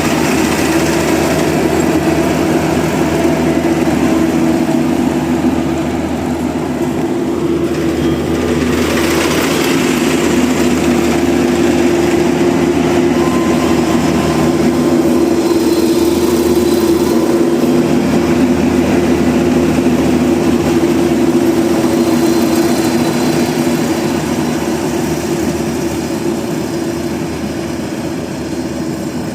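Combine harvester engine running steadily, easing slightly quieter near the end.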